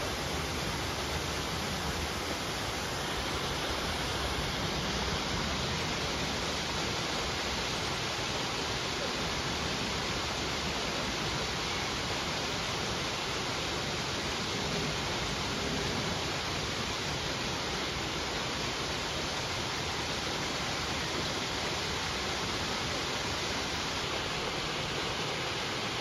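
Small waterfall pouring from a stone outlet over rocks into a pond: a steady, unbroken rushing splash of falling water.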